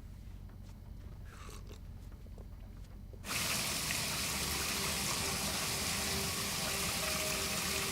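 A bath tap turned on about three seconds in, with water running steadily and filling the tub.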